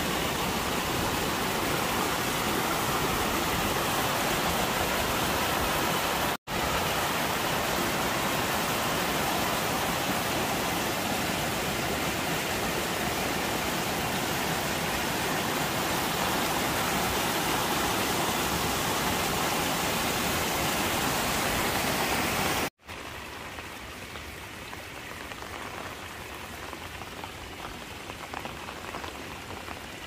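Muddy storm runoff rushing and splashing down a rocky, eroding hillside gully in a steady, loud rush: heavy-rain water carrying soil off the slope, a warning sign of landslide. It drops out for an instant about six seconds in, and near the end gives way to a much quieter, even hiss.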